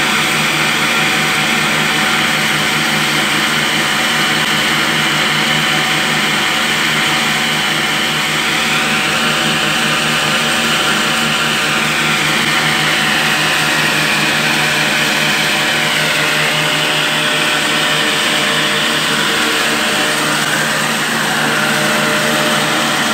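Electric flour mill (atta chakki) grinding wheat, belt-driven by a 20 HP electric motor: a loud, steady mechanical drone with a constant hum. A higher whine on top wavers up and down in pitch through the second half.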